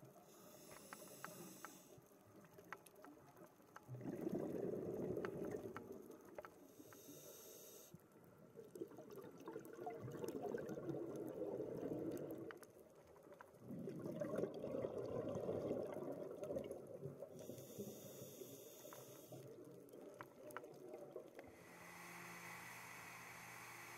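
Scuba regulator breathing heard underwater: short hissing inhalations through the regulator alternate with longer bubbling exhalations, three of them. Near the end it gives way to a steady hum from a boat's twin outboard motors.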